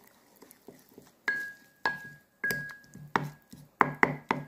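A spoon knocking against the inside of a ceramic bowl while a wet mixture is stirred. About seven sharp knocks start about a second in, and each leaves the bowl ringing briefly on one clear tone.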